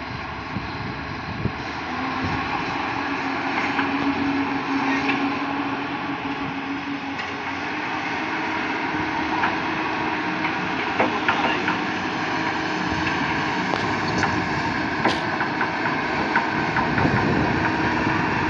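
Komatsu PC200 hydraulic excavator's diesel engine running steadily under work, with a steady humming whine joining in about two seconds in as the boom and bucket are moved.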